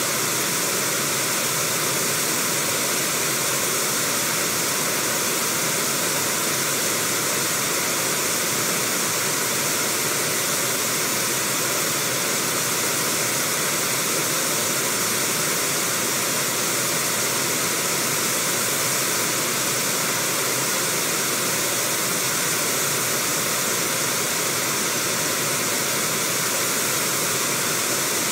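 Steady rush of river water running over shallow rapids.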